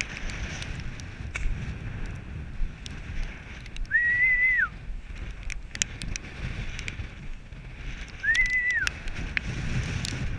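Two short whistles a few seconds apart, each sliding up onto a held, level note and dropping off at the end: a falconer whistling to call a Harris hawk back to the glove. Wind rumbles on the microphone underneath.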